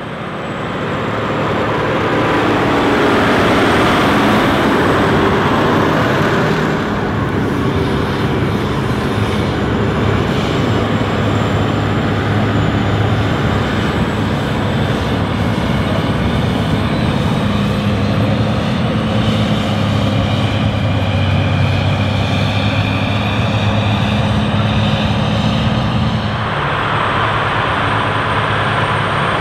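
John Deere 9330 articulated four-wheel-drive tractor's six-cylinder diesel running under load as it pulls a seven-shank subsoiler through the ground. The sound builds over the first couple of seconds as the tractor approaches, then holds as a steady, loud engine hum. The sound shifts a little near the end.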